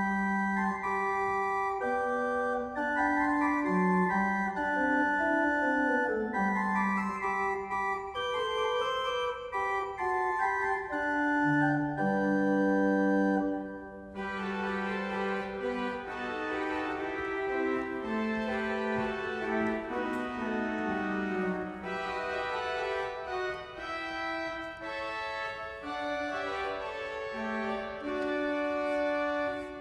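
J.W. Walker & Sons pipe organ playing music in several parts with held, sustained notes. About halfway through, after a brief dip, the sound turns brighter and fuller.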